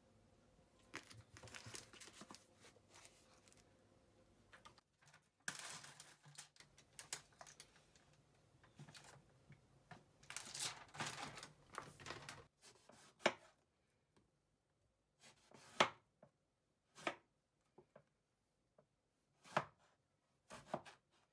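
Thin plastic punnet crinkling and rustling as cherry tomatoes are handled and picked out of it. From about halfway, a knife cuts through an aubergine onto a wooden chopping board: about six single, sharp chops a second or two apart.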